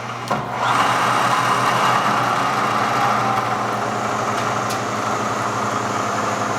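Bridgeport Series 1 milling machine's 2 hp variable-speed head running at a high spindle speed with the quill power downfeed engaged: a steady machine hum.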